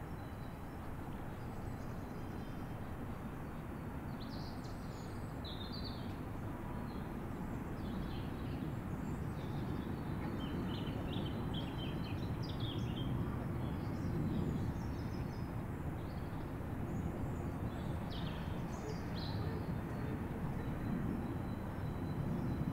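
Birds chirping in short scattered calls over a steady low rumble that slowly grows louder.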